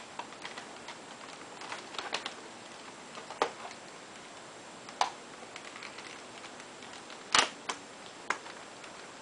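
Scattered small clicks and taps from handling a laptop screen panel and its ribbon cable connector as the cable is seated, the loudest about seven seconds in.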